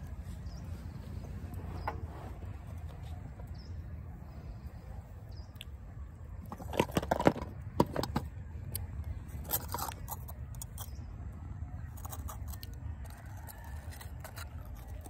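Roasted multani mitti (Fuller's earth clay) pieces being broken and crunched, heard as a few short clusters of sharp crackling clicks, the loudest about halfway through, over a steady low rumble.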